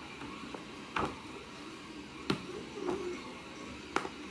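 Thin plastic clicks as a hole-punched clear acetate sheet is pressed onto the pegs of a 3D-printed face shield frame: a few short, sharp clicks about a second apart over faint handling rustle.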